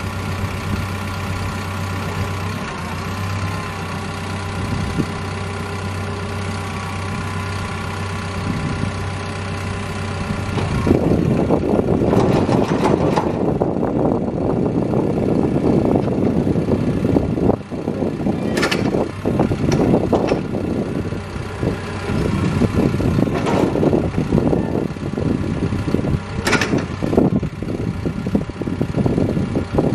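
Caterpillar D5K crawler dozer's diesel engine idling steadily, then running louder and rougher from about 11 seconds in as the hydraulics work the blade and ripper to cycle the fluid. A couple of sharp metallic clanks come in the second half.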